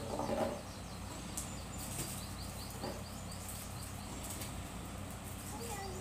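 A bird chirping in quick, high, repeated notes over a steady low hum.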